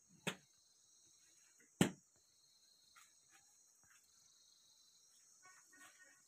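Steady high chirring of crickets or similar insects, with two sharp thumps about a second and a half apart.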